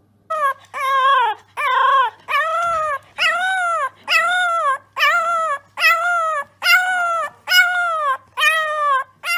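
French bulldog puppy howling: about a dozen short, high, yowling cries in a steady run, each rising and then falling in pitch, a little more than one a second.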